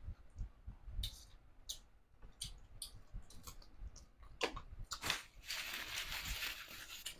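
Close-miked chewing and crunching of crispy fried fish: scattered crisp crunches, with a longer dense crunching stretch near the end.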